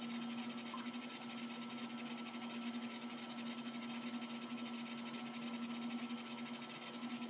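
Quiet room tone: a steady low hum over a faint even hiss, with no other events.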